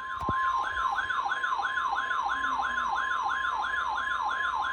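Weather radio warning alert: a steady high tone near 1 kHz, typical of the NOAA Weather Radio 1050 Hz warning alarm tone, layered with a warbling siren tone that sweeps up and down about three times a second. It marks the start of a severe thunderstorm warning.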